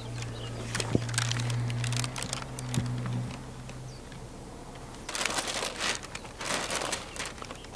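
Plastic release film peeling off a flexible solar panel's butyl adhesive backing, crinkling and crackling. Two rustling, scuffing stretches follow as the panel is handled. A low steady hum underneath stops about three seconds in.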